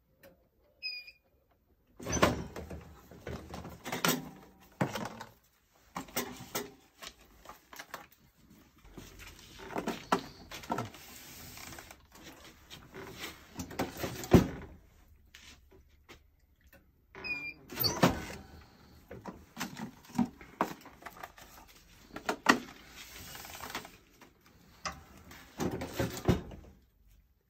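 Manual tray sealer being worked: clunks and knocks from the handle and press lid being brought down and raised, mixed with the rustle and clatter of plastic trays and sealing film. The sounds come in repeated bursts of a few seconds, with short pauses between them.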